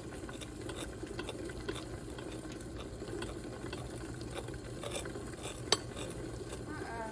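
A metal spoon beats a frothy cream mixture in a glass bowl, making a steady run of small scraping ticks. There is one sharper clink of spoon on bowl almost six seconds in.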